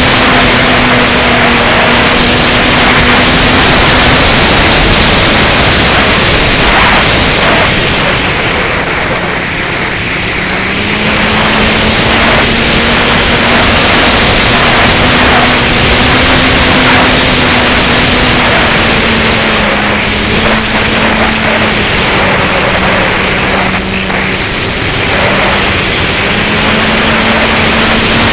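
Electric motor and propeller of a Flyzone Seawind RC plane in flight, heard from its onboard camera under loud rushing air on the microphone. The motor's steady whine drops in pitch about ten seconds in, then comes back up as the throttle changes.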